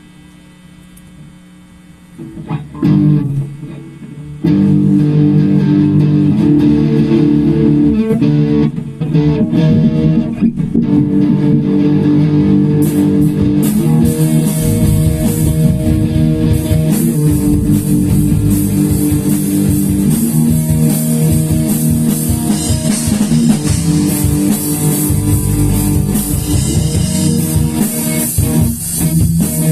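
Instrumental rock music: after a faint hum, guitar comes in about two seconds in, joined by bass and the full band a couple of seconds later, with drums and cymbals filling out the sound from about thirteen seconds on.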